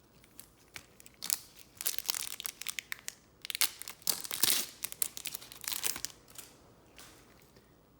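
A foil trading-card pack wrapper crinkling and tearing as it is ripped open, a run of crackles starting about a second in and stopping about six seconds in.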